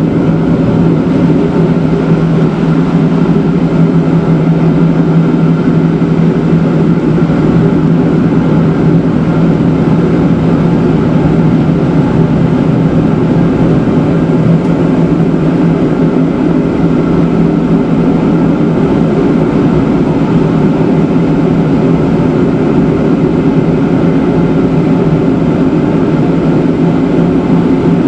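Matterhorn Gotthard Bahn electric rack train running on the cogwheel section, a loud steady drone of the motors and rack gearing with a low humming tone that never changes.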